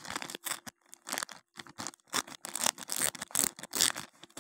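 Plastic courier mailer bag being torn open and crinkled by hand, a run of irregular crackling rustles.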